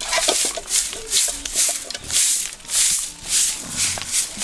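Short hand broom of bundled grass stalks sweeping sandy dirt ground in regular strokes, about two a second.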